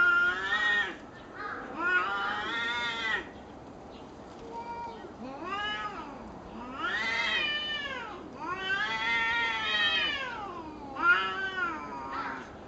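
Two cats caterwauling at each other in a fight standoff: a series of long, drawn-out yowls, each one to two seconds, wavering up and down in pitch, with short pauses between them.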